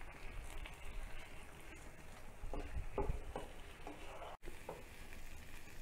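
Chicken pieces frying faintly in spiced oil and masala in a pan, with a few short spoon knocks and scrapes about halfway through as the meat is stirred.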